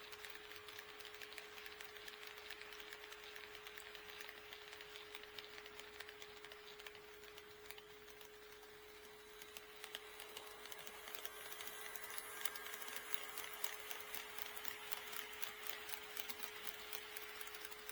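HO-scale model train running on track, its wheels clicking over the rail joints, with a steady hum underneath; the clicking grows louder and quicker from about ten seconds in as the train comes closer.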